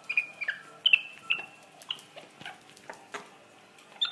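Young capuchin monkey giving short high squeaks, a quick run of them in the first second and a half and another near the end, with soft clicks and smacks in between.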